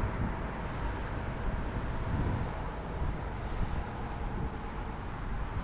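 Steady low rumble of a truck running, with even noise and no distinct events.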